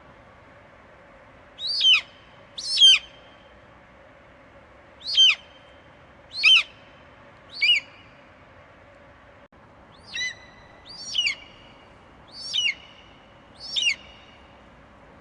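Eagle screeching: nine short, piercing calls, each falling steeply in pitch, in a run of five and then a run of four after a pause of about two seconds. A faint steady hiss lies underneath.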